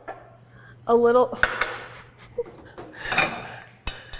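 Utensils clinking and scraping against ceramic bowls and plates in a few separate bursts of clatter, with a sharp clink near the end.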